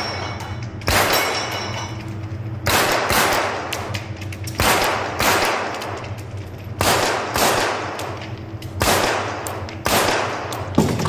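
Mini rifle (.22 rimfire) shots fired one at a time, about eight of them spaced a second or two apart, each with a long echo down the enclosed indoor range.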